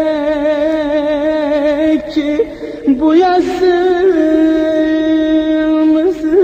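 Turkish folk song music: a single melody line of long held notes with strong vibrato over steady accompaniment, broken by a brief dip about two seconds in.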